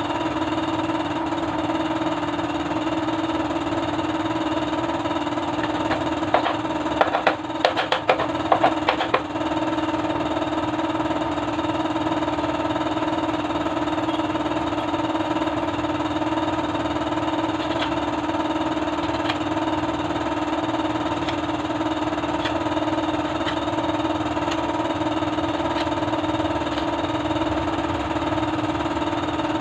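Bajaj CT100's single-cylinder four-stroke engine running steadily at idle after its overhaul. A quick run of sharp clicks and knocks stands out over it from about six to nine seconds in.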